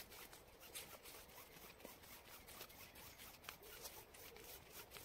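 Faint rubbing and rustling of a thick climbing rope being pulled through the loop of a trucker's hitch, with many scattered soft ticks.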